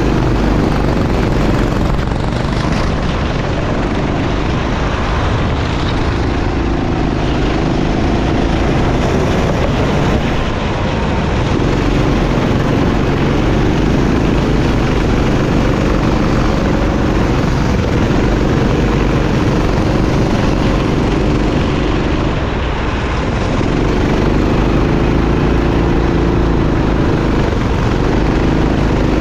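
Kart engine running hard on a lap, its pitch repeatedly climbing and then dropping back sharply, over a constant rush of wind and track noise.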